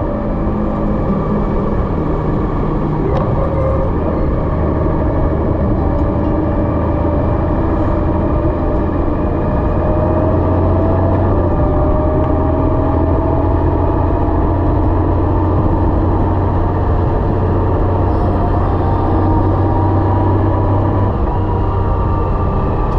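Honda Gold Wing DCT's flat-six engine running at a steady cruise, with wind and road noise, heard from the rider's seat. A whine rises slowly in pitch through the middle, and the engine's low hum eases about two seconds before the end.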